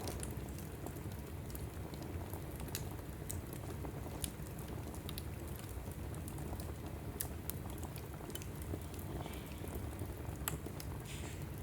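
Wood logs burning in a fireplace: irregular sharp crackles and pops over the steady low rumble of the flames, with a brief hiss near the end.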